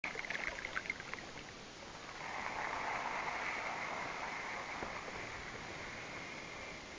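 Radio-controlled model cabin cruiser running on the water, a steady even sound that swells about two seconds in and holds, with a few light clicks in the first second.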